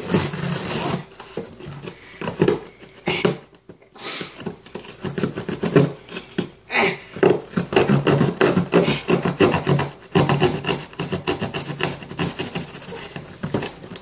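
A knife slitting the packing tape along a cardboard shipping box. It is a fast run of scratchy, rasping strokes of blade on tape and cardboard, which stops and starts a few times.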